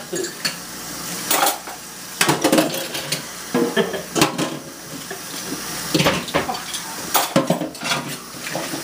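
Dishes and cutlery clanking and clattering against each other and the sink in quick, irregular bursts as they are hand-washed, over the steady hiss of a running kitchen tap.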